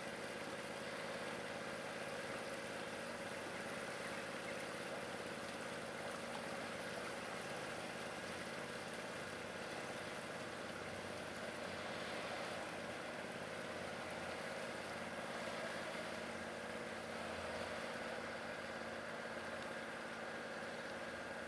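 Small river motor cruiser's engine running at low speed as it passes: a faint, steady hum that does not rise or fall.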